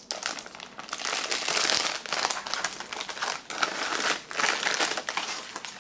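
Crinkling and rustling of the clear plastic bag of a US military MRE accessory pack being opened by hand and its contents pulled out.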